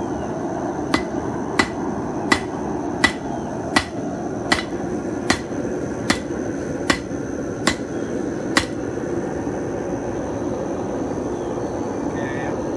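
Hand hammer striking hot metal on an anvil to forge-weld a mokume-gane billet: eleven even, ringing blows about three-quarters of a second apart, starting about a second in and stopping near two-thirds of the way through, over a steady rushing noise.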